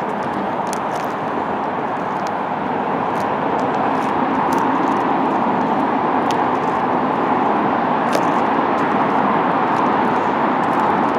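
Steady traffic noise from a major highway, sounding like a crowd in the distance, with a few faint ticks scattered through it.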